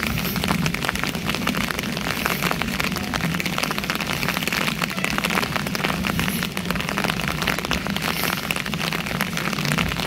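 Steady rain falling on a wet asphalt road, a dense, even patter of drops.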